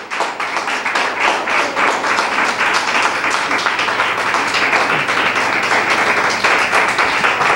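Congregation applauding: a dense, steady run of many hands clapping.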